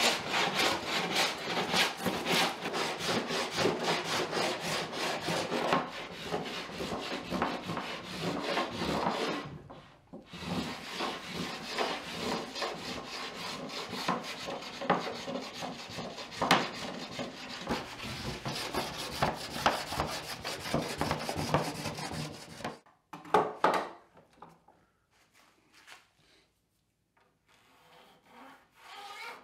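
Hand plane cutting shavings in rapid repeated strokes across a glued-up wooden table top, flattening it. The strokes pause briefly about a third of the way in and stop near the end, followed by a few light knocks.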